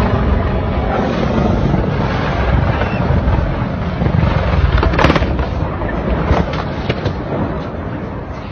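A helicopter flying low over the slope, heard as loud rumbling noise on a phone microphone. A sharp crack comes about five seconds in, followed by scattered knocks.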